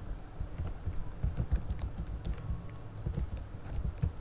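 Irregular typing at a computer desk: several dull taps a second, with light sharp clicks on top.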